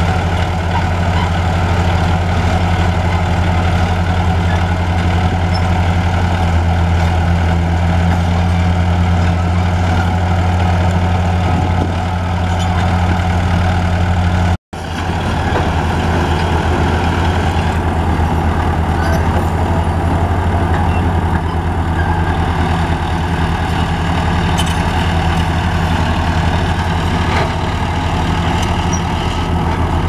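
Heavy diesel engines of a crawler bulldozer and a tracked excavator running steadily with a deep, even drone. The sound cuts out for an instant about halfway through, then resumes.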